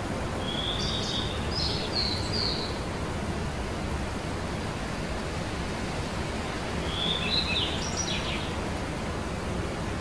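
Small songbirds chirping in two short bursts, one about half a second in and one about seven seconds in, over a steady outdoor rushing noise.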